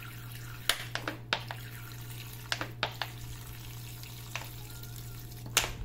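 Vinegar poured in a thin stream from a plastic bottle into a plastic measuring jug of water with dissolved baking soda and salt: a soft, steady trickle and splash, with a few light clicks along the way.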